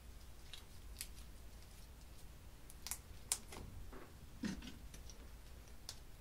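Sparse soft clicks and light taps from slime and plastic containers being handled over a glass dish, with one duller thump about four and a half seconds in.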